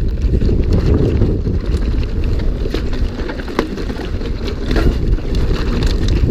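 Wind rushing over the microphone as a mountain bike descends a rough trail at race speed, with tyre noise and frequent rattles and clicks from the bike over bumps.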